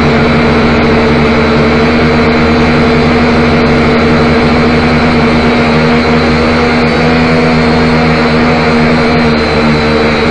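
Camera drone's electric motors and propellers running as it climbs, heard through its own onboard microphone: a loud, steady hum with a thin high whine above it.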